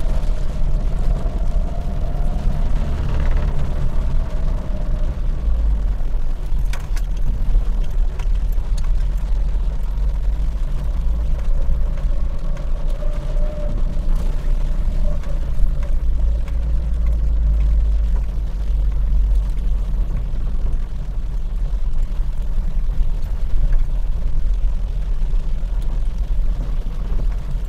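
A car driving on rain-wet streets, heard from inside the cabin: a steady low rumble of engine and tyres with a faint hiss above it, and a few light knocks.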